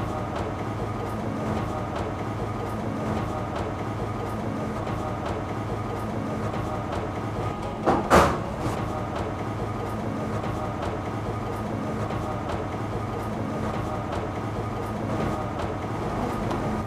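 Steady mechanical hum of bakery machinery running, with one loud clatter about eight seconds in.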